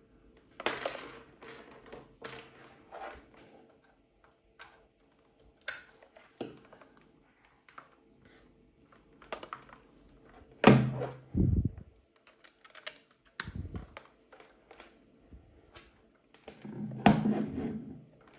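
Hands handling Ethernet patch cables and Ubiquiti U6 Enterprise In-Wall access points on a desk: scattered clicks, taps and knocks, with heavier thumps about eleven and seventeen seconds in.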